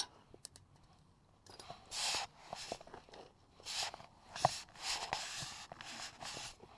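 Hand work on bumper mounting hardware: a series of short rustling, scraping strokes of about half a second each, with a sharp knock about four and a half seconds in.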